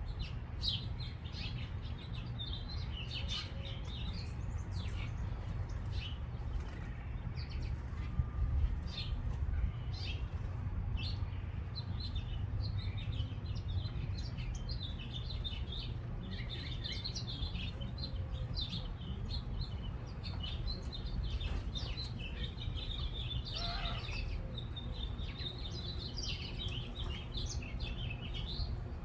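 Small songbirds chirping and twittering, many short high chirps overlapping, busier in the second half. A steady low rumble runs underneath.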